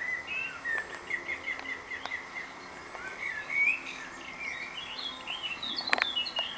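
Songbirds chirping and singing, a run of short quick notes and rising whistles. A sharp click near the end is the loudest moment.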